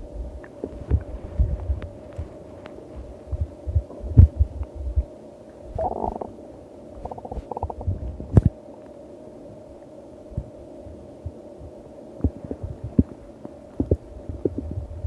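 Stomach growling: irregular low rumbles and gurgles with sharp little pops, and a louder, higher gurgle about six seconds in, over a faint steady hum.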